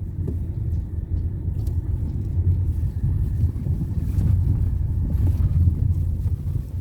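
Steady low rumble of a vehicle travelling along a road, engine and road noise with no clear pitch.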